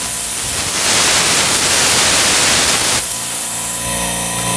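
Refrigerant vapour hissing out of a loosened hose fitting on a refrigeration compressor's suction line as the line is purged of air. The hiss swells about a second in and stops abruptly about three seconds in, leaving a steady machinery hum.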